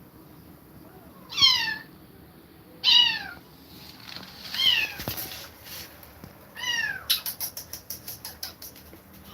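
Kitten meowing four times, high-pitched calls that fall in pitch, about a second and a half apart. After the last meow comes a quick run of sharp clicks that fades out.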